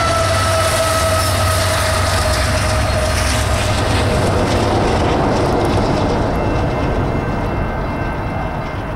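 Union Pacific autorack freight train rolling past: a steady rumble and clatter of the rail cars, with a high ringing tone that slowly drops in pitch and fades by about halfway. The noise eases off near the end as the train goes by.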